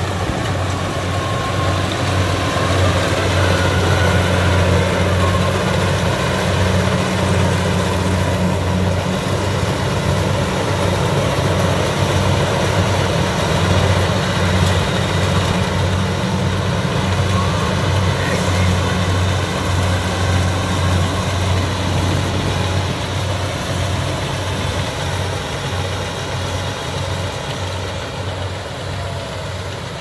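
Kubota PRO688Q rice combine harvester's diesel engine running steadily under load as it cuts and threshes rice, a deep, even hum with machinery clatter over it. It grows slightly quieter near the end as the harvester moves away.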